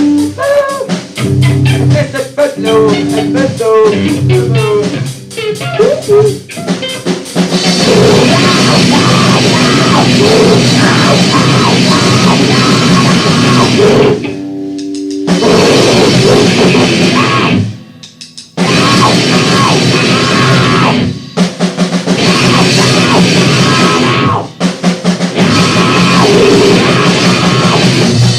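Loud, distorted noise-rock/hardcore music with a drum kit and guitars. A sparser opening of about seven seconds is followed by the full band coming in. The band stops dead and restarts several times, with the longest breaks about 14 and 18 seconds in.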